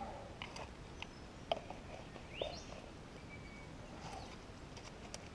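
Faint scattered clicks and rustles of soil, twigs and leaf litter being handled, with a quick rising chirp about two and a half seconds in.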